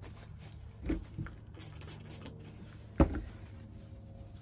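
Handling sounds at a table: a soft knock about a second in and a sharp click or tap near three seconds in, over a low steady hum.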